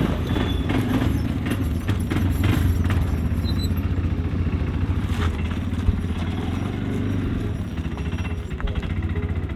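ATV engine idling steadily with a low hum, with a few light clicks and rattles over it.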